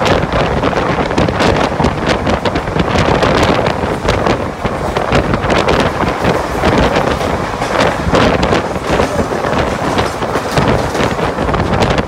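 Wind buffeting the microphone at the open door of the Deccan Queen express running at speed, over the train's rumble and a steady clatter of wheels on the rails.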